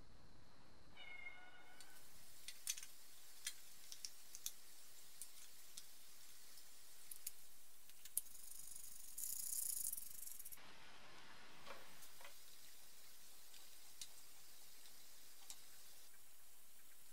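Quiet, sparse light clicks and taps of small metal parts and bolts being handled while the distributor and water pump pulley are fitted to a BMW M20B25 engine. There is a short high squeak about a second in and a brief hiss about nine seconds in.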